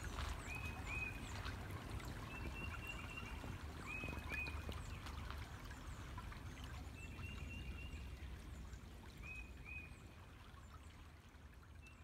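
Shallow creek water trickling over a sandy bed, with an animal calling high, short notes, often in pairs, every two or three seconds. The sound fades out near the end.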